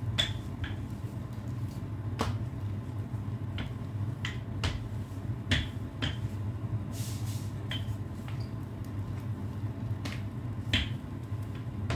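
Light sharp clicks and taps of kitchen utensils at irregular intervals, about ten in all, over a steady low hum. There is a brief hiss about seven seconds in.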